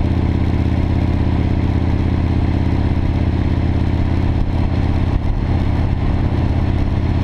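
Cruiser motorcycle's V-twin engine running at a steady highway speed, with a continuous rush of wind and road noise.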